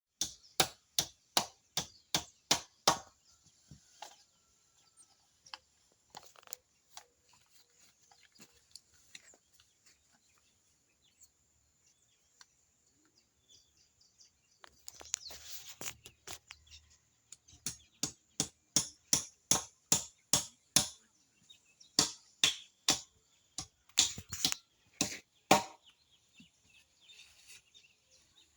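Hammering: runs of sharp, evenly spaced blows, about three a second, with a long gap of only scattered faint knocks in the middle.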